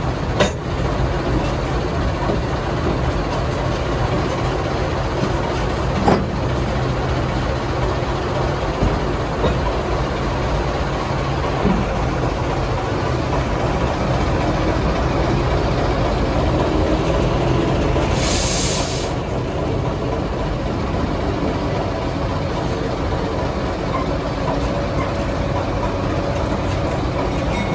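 General Electric diesel switcher locomotive's engine running steadily just ahead as the train rolls slowly, with a few short knocks from the couplers and car. About two-thirds of the way through comes a short hiss of released air.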